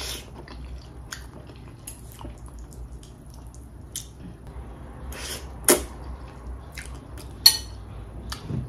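Close-up eating sounds: saucy noodles slurped off a fork and chewed, with small wet mouth clicks and two sharp clinks of a metal fork in the second half.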